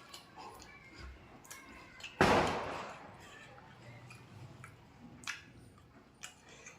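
Eating at close range: faint clicks and smacks of chewing. About two seconds in there is one loud sudden noisy burst, a bump or knock, that fades over about half a second.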